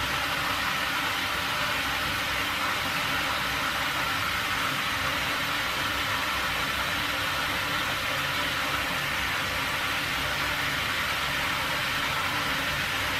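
Steady, unchanging hiss with a faint low hum underneath.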